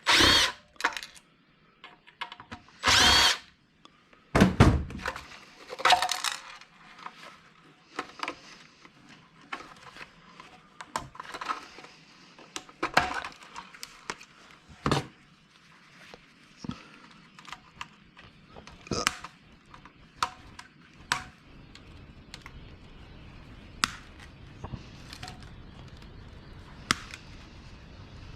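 Power drill spinning out screws in several short runs with a high whine, followed by scattered clicks, taps and clatter of small metal and plastic parts being handled during disassembly of a centrifuge.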